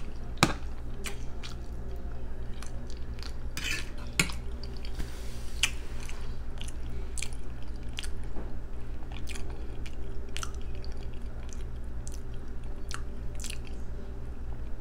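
Close-up chewing of a person eating, with wet mouth clicks and smacks scattered irregularly, two of them louder near the start and about four seconds in. A steady low hum runs underneath.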